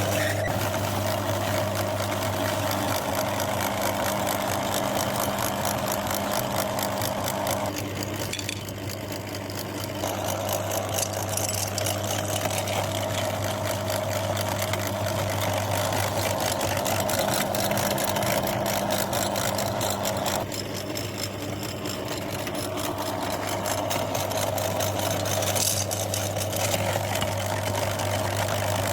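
Electric meat grinder running steadily with a constant motor hum and grinding noise, dipping in level briefly twice.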